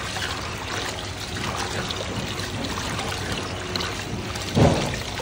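Water running and trickling as raisins are washed, with a single thud about four and a half seconds in.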